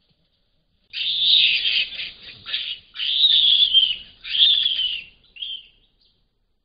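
Guinea baboon screaming: a series of high-pitched screams, several about a second long and some falling in pitch. It starts about a second in and stops near the end. This is the screaming typical of a baboon answering aggression from another.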